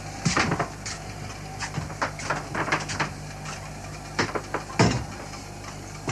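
Irregular knocks and clatters of household objects being handled, with the loudest knock near the end, over a steady low hum.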